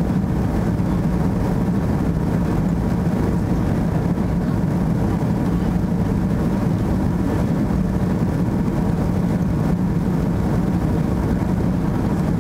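Steady cabin noise of an Airbus A330 climbing after takeoff: jet engines and rushing air heard from inside, an even low hum that does not change.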